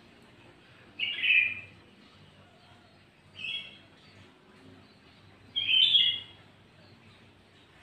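Sooty-headed bulbul (kutilang) calling: three short, bright phrases a couple of seconds apart, the first and last the loudest.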